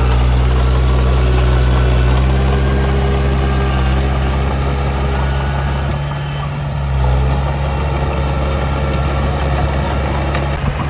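Heavy diesel engine of earthmoving machinery running steadily with a deep, even drone. It eases off briefly about six seconds in, then picks up again.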